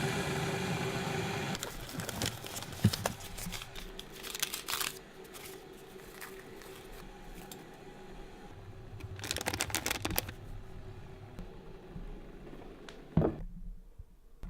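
Handling noises in a small room: crinkling and rustling with scattered clicks, in two busier spells, and a sharp knock near the end.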